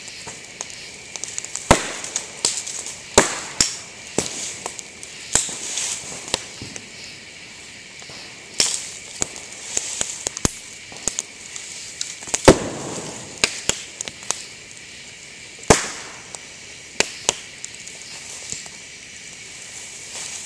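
Dry bamboo burning in a bonfire, popping with sharp, loud bangs at irregular intervals as the sealed hollow sections of the canes burst in the heat, over a steady crackle and hiss from the fire.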